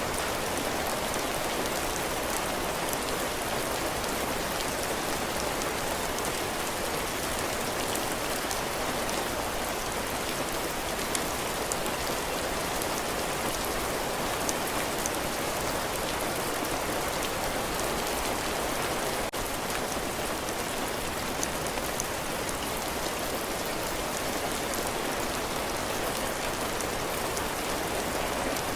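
Heavy rain falling steadily on a cabin porch's roof and the ground, an even hiss with scattered individual drops ticking through it.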